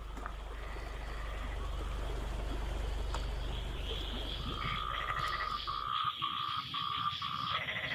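Frogs calling after rain, answering one another: a run of short repeated croaks starting about four and a half seconds in, then a faster pulsed call near the end, over a steady high trill. A low rumble underneath stops about six seconds in.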